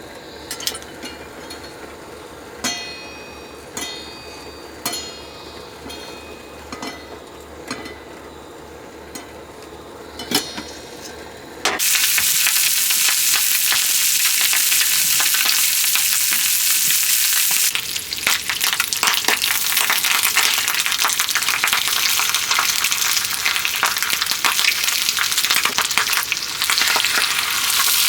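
A few light metallic clinks with short ringing tones, like utensils on cookware. About twelve seconds in, a loud steady sizzle of food frying in a hot pan starts suddenly and runs on.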